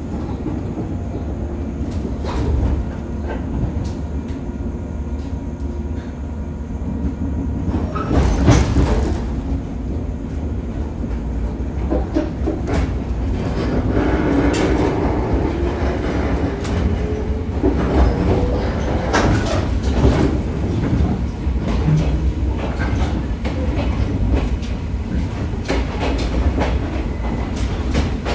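A 115 series electric multiple unit running on the rails, with a steady low rumble and the clack of wheels over rail joints. About halfway through a whine rises in pitch for several seconds.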